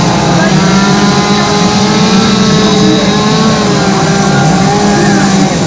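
Two-stroke chainsaw engine running steadily at high throttle, a loud, unbroken buzz during chainsaw carving.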